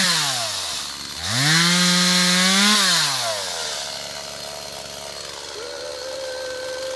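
Small Stihl two-stroke chainsaw cutting underbrush: it drops from full throttle to idle, revs up again and holds for about a second and a half, then falls back to idle. A fainter steady higher tone joins near the end.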